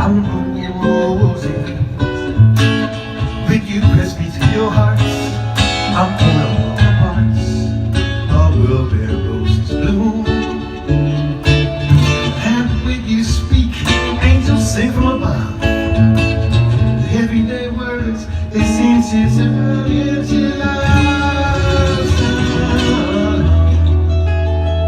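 Acoustic guitar playing a country or bluegrass tune, with many quickly picked notes over changing bass notes.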